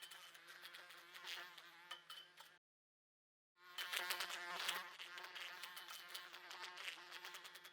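A fly buzzing against a glass window pane, its wings whirring with rapid ticks as it bumps into the glass. The sound cuts out completely for about a second near the middle, then resumes.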